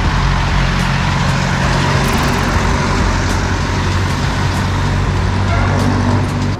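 City street traffic heard from a moving bicycle: a steady low engine hum from nearby motor vehicles under a constant rush of road and wind noise, cutting off abruptly at the end.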